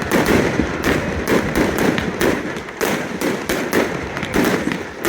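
Aerial fireworks bursting in a dense barrage: loud bangs come two or three a second over continuous crackling.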